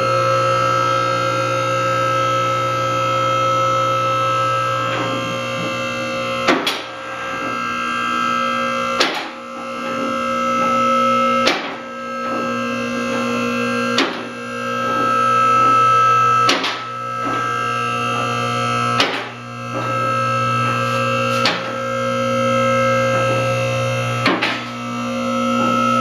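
Background music led by a guitar, with chords that change about every two and a half seconds.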